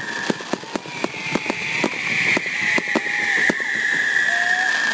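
Fireworks going off in quick succession: a rapid string of sharp bangs, about two to three a second. From about a second in, a high whistle runs under them, slowly falling in pitch.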